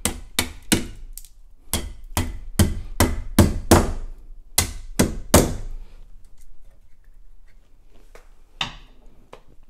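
A hammer knocking at a plumbing wall box's metal mounting frame fixed to a brick wall. About fifteen quick blows come in the first five seconds or so, then a few light taps and one sharper knock near the end.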